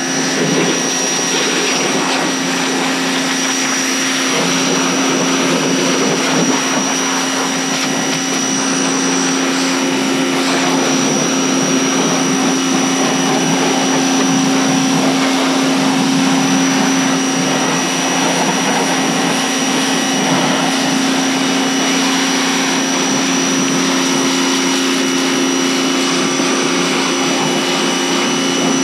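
A 2200 PSI pressure washer running steadily while its water jet sprays mud off an ATV: a steady motor-and-pump hum with a high whine over the hiss of the spray.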